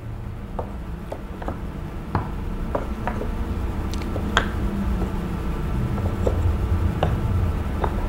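Wooden knobbed shape pieces of a wooden shape puzzle being handled and set into the cut-outs of the puzzle board: a string of light wooden clicks and knocks with some soft rubbing.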